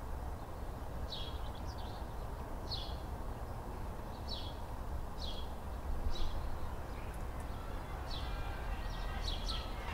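A small bird giving short, high, falling chirps, repeated about every second, over a steady low background rumble of outdoor ambience.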